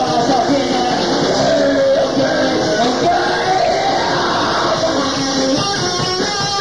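Rock band rehearsal recording: a sung, wavering vocal line over a full band backing with guitar.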